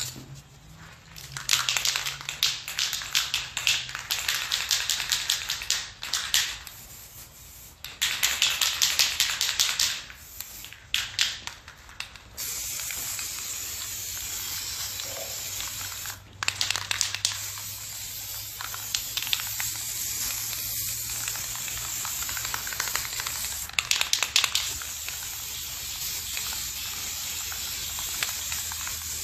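Aerosol spray paint can shaken in three bursts of rapid rattling from its mixing ball. Then a long steady hiss of orange paint being sprayed, broken once by a short pause.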